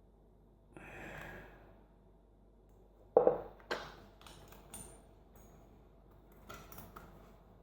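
Small metallic clinks and taps as a mortise lock cylinder and picking tools are handled on a hard surface: a sharp knock about three seconds in, then a run of lighter ticks, one with a brief high ring. A soft rustle comes about a second in.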